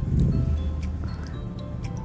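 Background music, with a few faint clicks over it.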